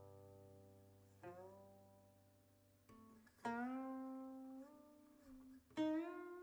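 Quiet background music: slow single notes on a plucked string instrument, each ringing out, a few seconds apart, some sliding slightly in pitch as they start.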